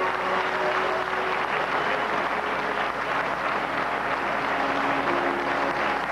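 Large stadium crowd cheering and applauding, a steady dense wall of noise.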